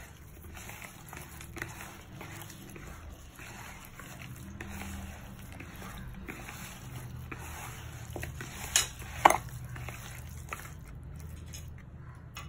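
A hand squishing and kneading raw chicken pieces in a wet spice marinade in a plastic bowl. Two sharp knocks come a half-second apart about nine seconds in, the loudest sounds here.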